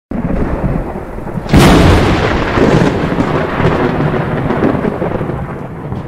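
Thunder: a steady rumbling hiss, then a sharp, loud crack about a second and a half in, followed by a long rolling rumble that slowly fades.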